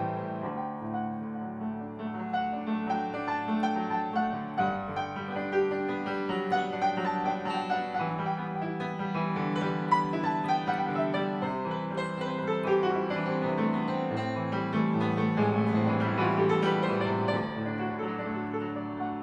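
Antique Steinway & Sons Model A grand piano being played: a melody over sustained bass notes and chords, growing softer near the end.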